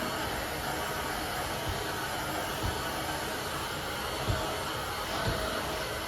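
Vacuum cleaner running steadily with an even whine and hiss, with a few soft low thumps.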